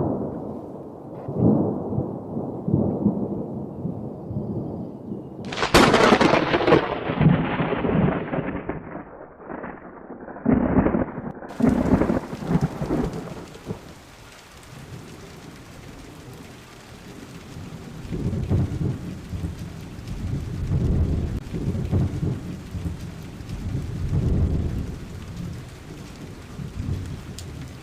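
Thunderstorm: rumbling thunder with a loud crack about six seconds in that rolls away, then steady rain with further low rolls of thunder.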